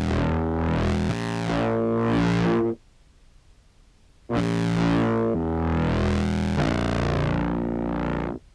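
Contrabass clarinet samples played through a fuzz pedal and an OBNE Float filter whose modulation sweeps the tone up and down in repeated arcs. Two phrases of stepped low notes, with a pause of about a second and a half between them.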